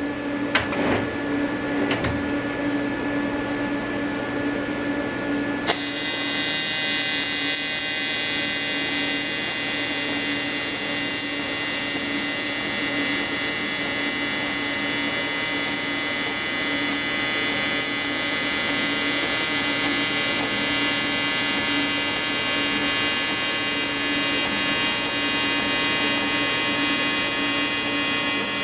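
AC TIG welding arc from an Everlast 325EXT on square wave, buzzing steadily on an aluminium intercooler. The arc strikes suddenly about six seconds in. Before it, a steady hum and a few light clicks.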